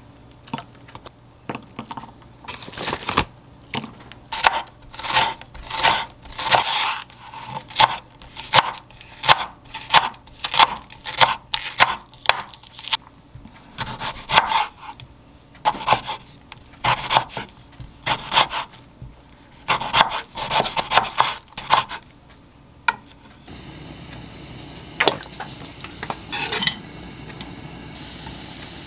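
Kitchen knife cutting vegetables on a wooden cutting board: irregular chopping strokes, a few a second, in runs with short pauses. About 23 seconds in it gives way to green onion sizzling steadily in olive oil in a frying pan.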